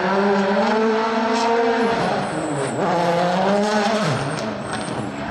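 Rally car engine at high revs, its pitch climbing and then dropping sharply twice, about two and about four seconds in, as the driver shifts or lifts. Thin high tyre squeals come with the drops.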